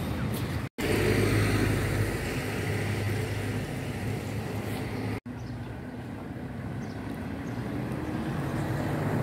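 Street traffic: a motor vehicle running on the road with a steady engine hum, loudest in the first few seconds. The sound is broken by two brief cuts.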